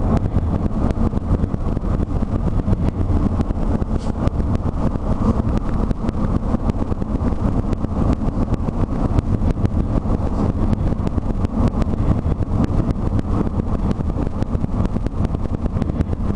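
Inside a moving car with the windows down: steady road and engine rumble, with wind buffeting the microphone in a rapid pitter-patter.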